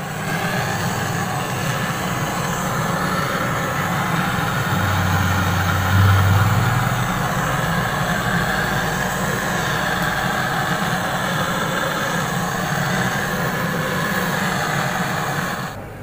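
Handheld butane gas torch burning steadily as its flame heats the copper refrigerant pipe on a fridge compressor, a continuous rushing hiss, with a deeper hum swelling for about two seconds around the middle.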